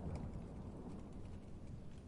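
Low rumble of distant thunder dying away, with scattered raindrops pattering and ticking.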